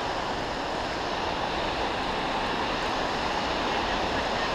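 Steady rush of a waterfall and the fast-flowing creek below it, an even noise with no distinct events.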